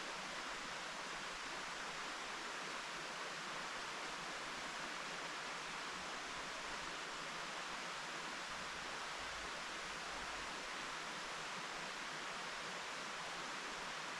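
Mountain stream rushing steadily over rocks, an even unbroken wash of water.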